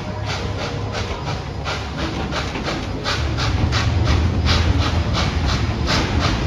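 Narrow-gauge steam locomotive chuffing steadily, about three exhaust beats a second, over the low rumble of the train rolling. The rumble grows louder about three seconds in.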